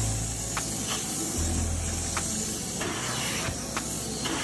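Upholstery extraction hand tool spraying and sucking back cleaning solution as it is drawn over sofa fabric, a steady hiss over the extractor's low motor hum.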